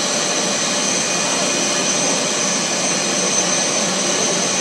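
Bubble film (bubble wrap) making machine running: a steady, even machine noise with a constant high whine over it.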